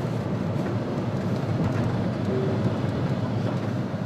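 Steady road and engine noise of a moving car heard from inside the cabin, strongest in the low range. A short, faint steady tone sounds about two seconds in.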